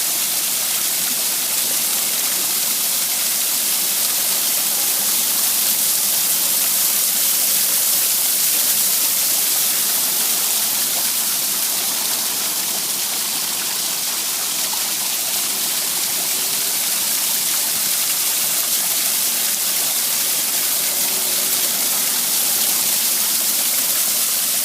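Water pouring over an artificial rock waterfall, splashing steadily in an even hiss.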